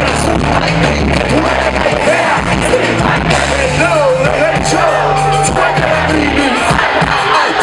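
Loud live concert music through a festival PA: a heavy bass line that steps between notes, with a man's voice rapping and singing into a microphone over it.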